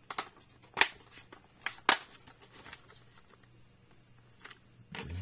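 Hard plastic playset parts clicking and snapping together as a road piece is fitted onto the base plate. There are two loud snaps about a second apart in the first two seconds, then a few fainter clicks and rattles of the plastic being handled.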